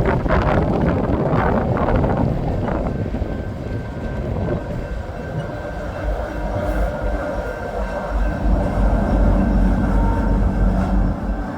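Coal train's cars rolling past in a steady rumble. Wind gusts on the microphone mark the first few seconds, and a faint steady whine joins a few seconds in.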